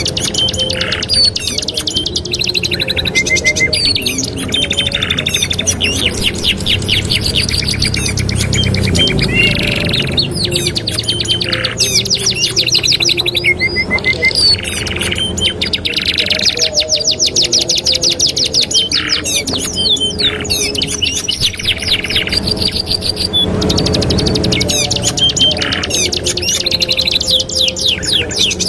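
Domestic canaries singing without pause: long fast rolling trills and rapid runs of repeated chirping notes, changing from phrase to phrase.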